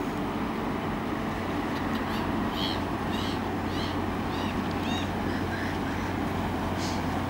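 Large cargo ship passing close by, its engines making a steady low drone with a constant hum. Over it, a bird gives a quick string of short calls from about two to five seconds in, and one more near the end.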